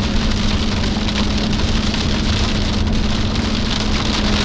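Rain pelting the roof and windshield of a moving vehicle, over steady road noise and a constant low hum.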